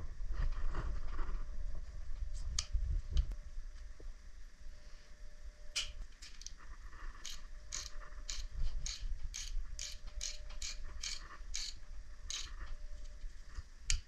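Ratchet wrench clicking in a steady run of about two to three clicks a second as it drives a cable stripping tool around a 20 kV power cable. Handling knocks and a few scattered clicks come first, and the steady clicking starts about six seconds in.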